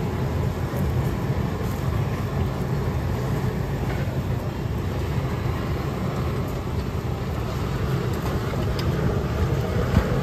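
Steady low roar of a gas burner running at full flame, with a few light metal taps.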